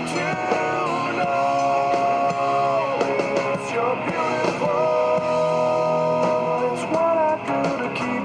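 A recorded rock song playing, with guitar and long held melody notes over a steady full accompaniment.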